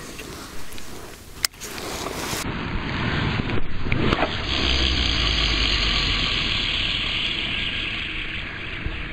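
A steady rushing noise with a low rumble under it, setting in about three seconds in; a sharp click comes shortly before.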